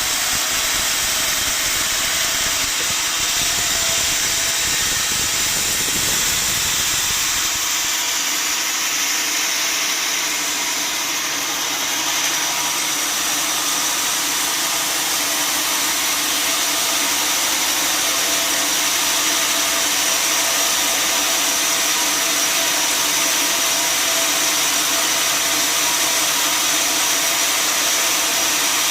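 Sawmill machinery running steadily, a loud even whir with a low rumble underneath that drops away about eight seconds in.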